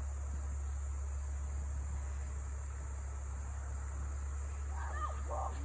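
Steady chorus of crickets, a continuous high-pitched drone, over a low steady rumble, with a brief voice calling out near the end.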